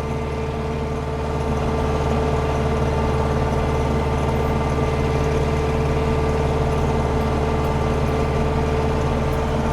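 Landini Blizzard 65 tractor's turbo-diesel engine running steadily, heard from inside the cab, with a steady whine over it. The level rises a little about a second and a half in.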